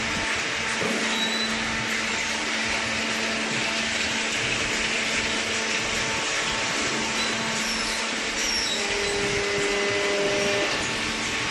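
Hydraulic baler's motor and pump running steadily: a constant hum under a broad hiss.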